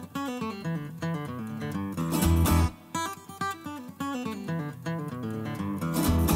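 Background music: a picked acoustic guitar playing quick runs of single notes, with a few deep bass notes near the end.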